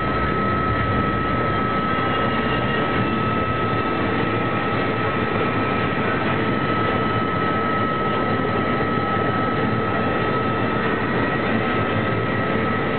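Steady roaring rush of the simulated storm's wind and rumble in the Twister...Ride It Out attraction, with a thin steady high tone held over it.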